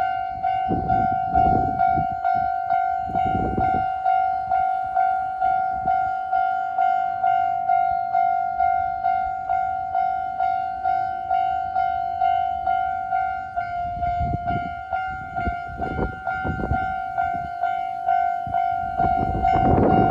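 Japanese level crossing's electronic warning bell ringing steadily at about two strikes a second, each strike a bright ding that fades, signalling that a train is approaching. Low rumbles come and go beneath it and grow loudest near the end.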